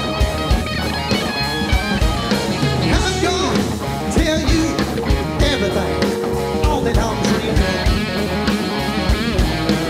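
Live rock band playing: electric guitar and a drum kit keeping a steady beat, with a male singer's lead vocal.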